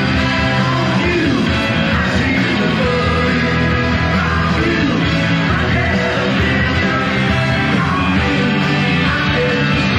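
Rock band playing live in an arena, with singing over sustained chords and a steady full-band accompaniment.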